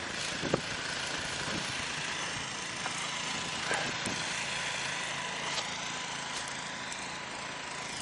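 SUV engine idling steadily, with a few light clicks over it.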